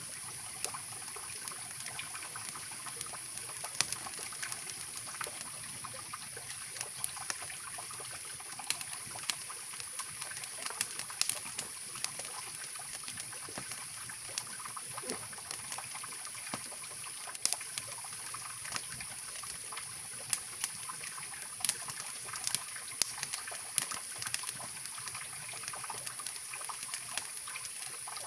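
Mountain river rushing steadily beneath a campfire that crackles with frequent sharp, irregular snaps.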